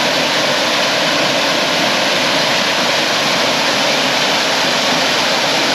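Waterfall pouring into a creek: a steady, loud rush of falling water.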